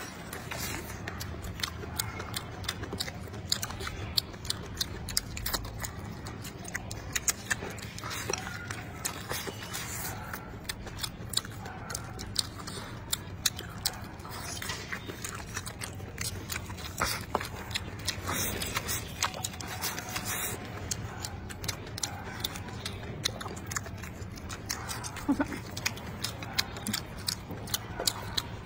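Close-miked chewing of rice and stir-fried meat, with many small sharp mouth clicks and smacks throughout, over a faint steady low hum.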